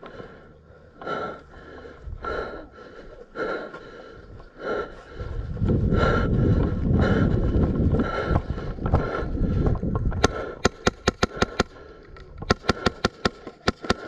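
Heavy breathing inside a helmet, about one breath a second, followed by a few seconds of loud rumbling noise and then two rapid strings of sharp shots from an airsoft gun, about eight and then a dozen or more cracks in quick succession.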